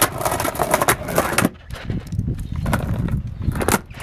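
Skateboard rolling over concrete paving slabs, with a low rumble and irregular clacks and knocks as the wheels cross the joints.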